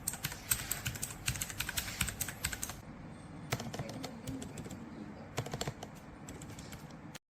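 Mechanical keyboard keys with Outemu switches being pressed and typed on. A fast run of clicks lasts about three seconds, then short bursts of clicks follow.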